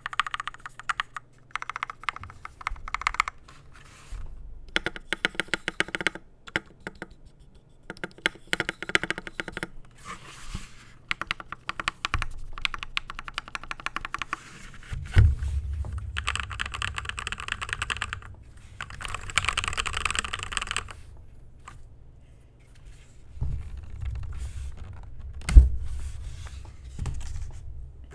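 TM680 65% mechanical keyboard with lubed Akko CS Matcha Green linear switches, lubed stabilizers, sound-dampening foam under the PCB and XDA-profile keycaps, typed on in runs with short pauses: a deep, muted "thocc" of keystrokes, with a few heavier thumps.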